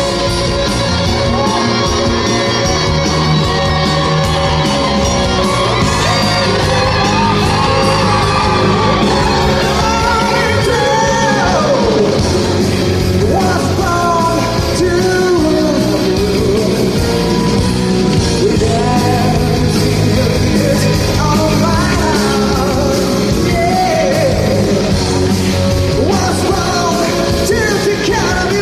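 Live rock band playing loudly, with a singer belting high, yell-like vocal runs that slide up and down in pitch several times.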